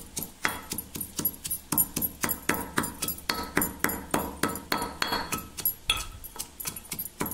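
Pestle pounding in a mortar, steady strokes about four a second, each a sharp knock with a short ring.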